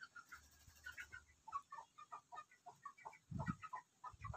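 Chickens clucking faintly in the background, a run of short calls several a second, with a soft low thump about three seconds in.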